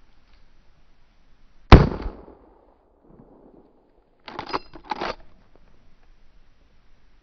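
A single rifle shot from a Winchester Model 1894 lever-action carbine in .32 Winchester Special, with a short ringing tail. About two and a half seconds later come two quick groups of metallic clacks, the lever worked open and shut to eject the spent case and chamber the next round.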